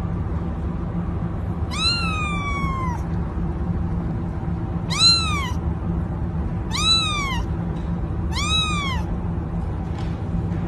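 Young ginger kitten meowing four times, each high-pitched call rising and then falling, the first one longer than the rest. A steady low hum runs underneath.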